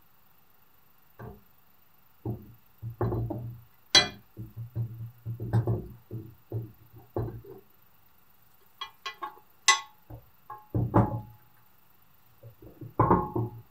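Painted cast-iron parts of an old kitchen balance knocking and clunking against each other and the wooden bench as they are handled and fitted together: irregular knocks, a few with a short metallic ring.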